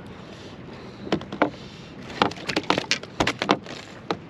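Irregular knocks and taps, in quick clusters through the middle: a freshly landed striped bass flopping in a landing net against the boat deck, with the net frame and tackle rattling.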